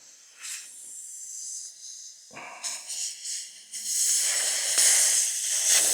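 Air hissing out of a punctured tubeless Land Rover tyre as the tek screw is worked out of the tread, letting the tyre deflate. The hiss is faint at first, with a few short knocks in the middle, and grows much louder and fuller about four seconds in.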